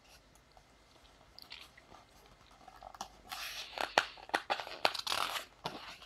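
Paper page of a picture book being turned and handled, rustling and crinkling with small clicks and taps. It starts quietly and gets busier from about halfway in.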